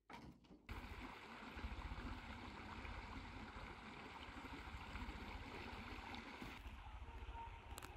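Small stream flowing steadily, with wind rumbling on the microphone, starting abruptly just under a second in.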